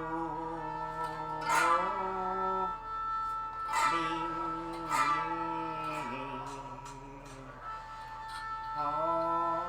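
Slow, simple music on a plucked string instrument: a few struck notes and chords ring on and change pitch between strikes, over a faint steady high tone.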